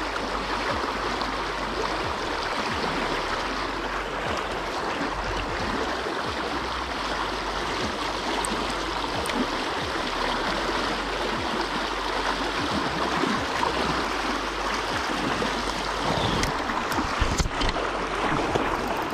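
River water flowing steadily over a shallow bed, an even rushing sound, with a few faint clicks near the end.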